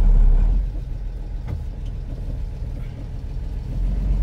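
Diesel engine of a Mercedes 1418 4x4 truck running with a steady low rumble, easing off a little after half a second and building again near the end.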